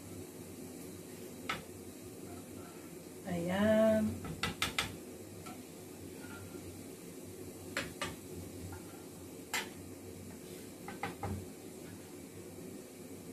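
A spoon tapping and scraping against a small saucepan and aluminium flan moulds as caramel is spooned out, in scattered light clicks, with a quick run of clicks about four and a half seconds in. About three seconds in there is a short voice-like hum, the loudest sound.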